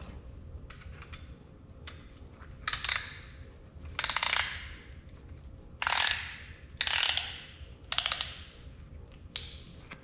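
Piston ring compressor being ratcheted tight around a piston, compressing the rings for installation: six short runs of rapid ratchet clicks, the loudest about six seconds in.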